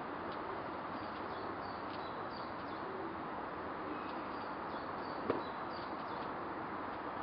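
Outdoor bird ambience: small birds chirping over and over in short high notes above a steady rushing background haze, with one sharp click about five seconds in.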